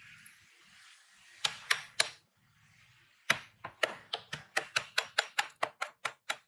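Sharp knocks or taps: three about a second and a half in, then a quick run of about a dozen, four or five a second, that stops just before the end.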